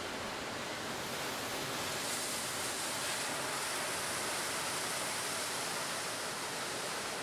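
Sea surf breaking on a rocky shore: a steady rush of waves and spray that swells slightly about two seconds in.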